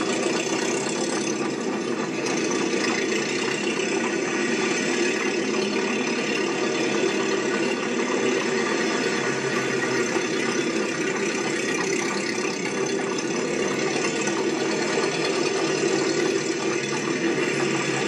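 Steady mechanical running noise with a rattle, holding an even level throughout with no breaks or changes.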